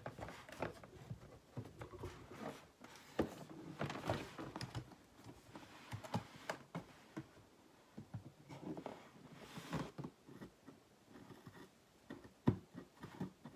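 A cardboard toy box being handled and opened: scattered light taps, clicks and scraping, with a few longer rubbing or rustling scrapes and a sharper tap near the end.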